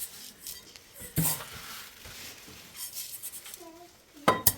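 Kitchenware clattering: a knock about a second in, then a sharper cluster of knocks near the end.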